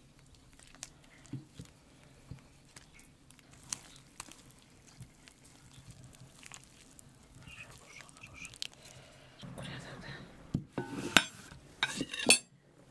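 A metal slotted skimmer scraping and clinking in a pot of fish soup and against clay dishes, with scattered soft clicks. Near the end come a few louder knocks and clatters of dishes and a spoon on the table.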